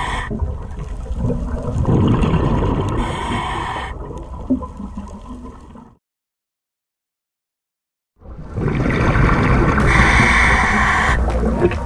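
Underwater bubbling and rumble of a scuba diver breathing through a regulator, swelling and fading in spells of exhaled bubbles. It cuts to complete silence for about two seconds just past the middle, then the bubbling returns.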